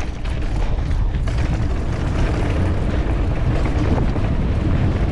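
Wind buffeting the camera microphone as a mountain bike rolls fast down a dirt run-in, a steady loud rumble with tyre noise beneath it.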